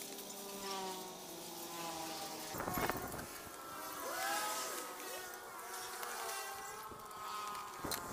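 A fly buzzing close by, its pitch wavering slowly, with a short dull thud about three seconds in.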